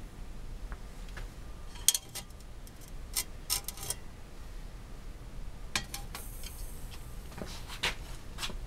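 Lightweight backpacking pots handled on a small metal alcohol stove: scattered light metal clinks and taps, the sharpest about two seconds in, over a low hum.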